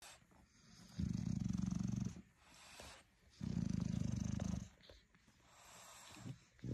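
Mother bulldog making a low, rattling, purr-like rumble twice, each about a second long, with quieter breaths between. It is a protective rumble over her newborn puppies.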